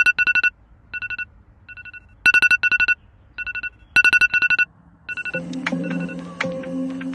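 An electronic alarm beeping in fast bursts of a two-note tone, several beeps to a burst with short pauses between, as a wake-up alarm. A little past halfway, soft background music comes in.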